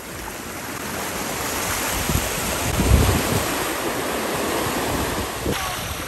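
Ocean surf washing in at the shoreline, with wind buffeting the microphone in low rumbles that are loudest about halfway through.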